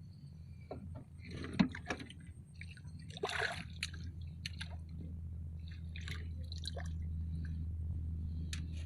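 Water splashing and dripping, with scattered clicks and knocks and one louder splash about three and a half seconds in, over a steady low hum.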